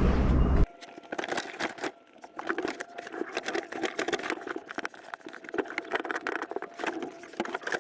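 A loud sound with a heavy low hum cuts off abruptly under a second in. Then comes a quick, busy run of small clicks, taps and rustles from carpet and interior trim being handled inside a car.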